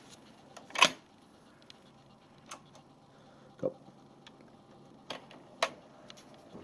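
Transport of a Marantz SD240 cassette deck clicking as its front-panel buttons are pressed: about five separate sharp clicks, the loudest about a second in, over a faint steady hum.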